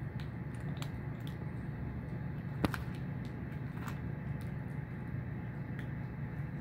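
Cats eating from tin cans on concrete: scattered small clicks and crunches of chewing and of the cans being nudged, with one sharper click a little under three seconds in. A steady low hum runs underneath.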